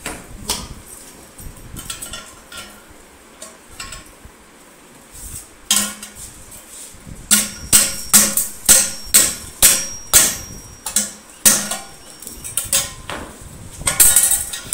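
Hand hammer striking the metal chair frame and its stainless steel seat pan against a heavy steel ring, a run of sharp metal-on-metal blows about two a second with a light ring after each. A few lighter knocks come first, and a last cluster comes near the end.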